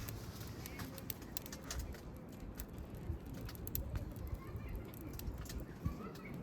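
Wood burning in a campfire, crackling with frequent irregular sharp pops.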